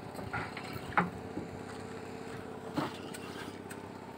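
Boat engine running steadily, with two short knocks, about one and three seconds in.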